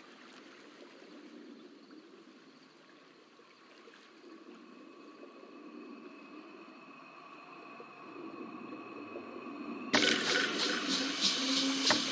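Faint quiet ambience with a few faint steady tones, then about ten seconds in a sudden loud rush of seawater splashing and streaming off a person rising out of the sea, with a low held tone near the end.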